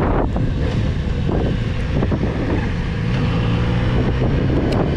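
Yamaha motorcycle's engine running at a steady cruise, heavily mixed with wind buffeting the rider-mounted microphone; the engine note settles into a steady low hum about halfway through.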